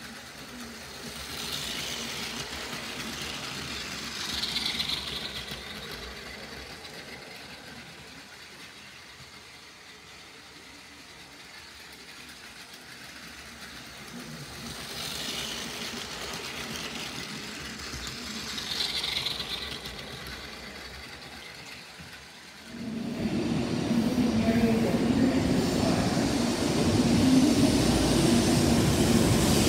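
Battery-powered toy bullet train running on plastic track, its small motor's whine and wheel rattle swelling and fading twice as it comes round the layout. About 23 s in, a real shinkansen train takes over, much louder, a steady rushing rumble as it runs past the platform.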